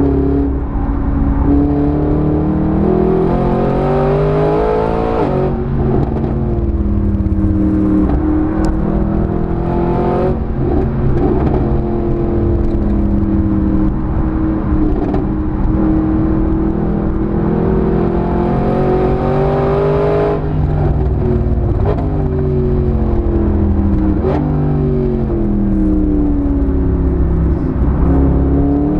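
Mercedes SLS AMG's 6.3-litre V8 driven hard on track, its pitch climbing under acceleration and breaking at each gear change. About two-thirds of the way through, the pitch drops in a run of steps as the car brakes and shifts down for a corner, then it climbs again near the end. A few short sharp cracks stand out along the way.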